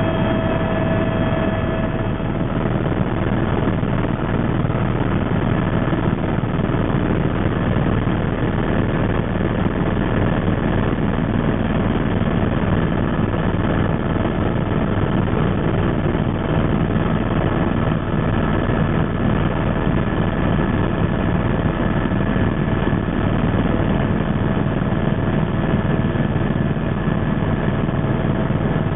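Helicopter in cruising flight heard from inside the cabin: a steady, loud rotor and engine drone, with a few steady whining tones over it.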